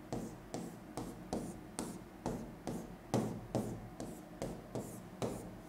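Pen strokes on an interactive whiteboard screen as lines are drawn: a light scratch-and-tap repeated about two to three times a second.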